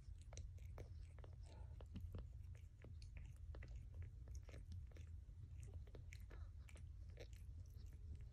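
Calico mother cat licking her newborn kittens: faint, irregular wet smacking and clicking of her tongue and mouth, over a steady low hum.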